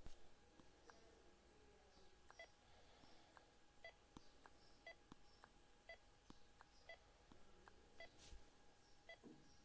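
Faint short electronic beeps repeating about once or twice a second over a steady faint tone, with a few light clicks among them.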